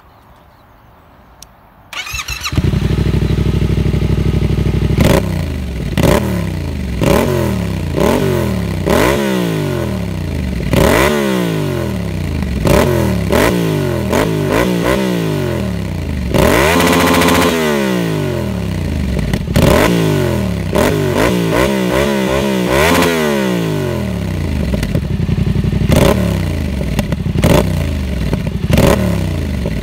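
A 2018 Yamaha MT-07's 689 cc parallel-twin engine, breathing through an SC-Project Black Edition exhaust with its muffler insert in, starts about two seconds in and idles briefly. It is then blipped again and again, about once a second, with one longer, higher rev near the middle.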